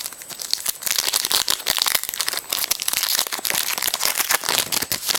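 A trading card pack's wrapper crinkling and crackling as it is handled and crumpled, with many small sharp crackles, starting about a second in.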